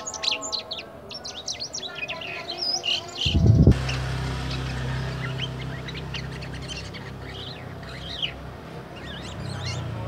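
Jalak kapas (white-shouldered starling) twittering in quick, varied chirps and short whistled notes. This is the soft, still-unfinished 'ngeriwik' stage of its song. About a third of the way in a loud low thud sounds, and then a steady low hum runs under the fainter chirping.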